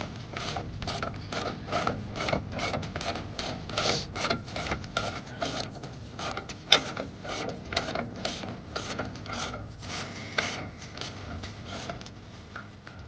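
Repeated short rasping strokes from hand-tool work, a few a second, with one sharp click about halfway through; the strokes thin out near the end.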